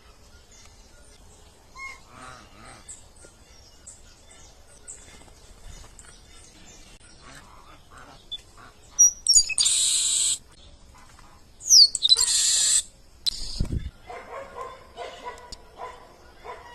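Wild birds calling and chirping at a feeder, with two loud, harsh, about one-second calls near the middle and a thump a little later.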